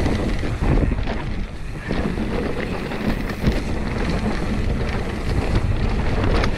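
Pivot Switchblade mountain bike rolling fast down a dirt trail: tyre rumble on the dirt with frequent knocks and rattles from the bike over bumps, under heavy wind buffeting on the microphone.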